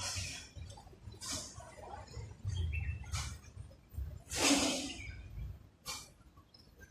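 Mouth and breath noises of someone eating close to the microphone: about five short, breathy sounds roughly a second apart, over a low rumble.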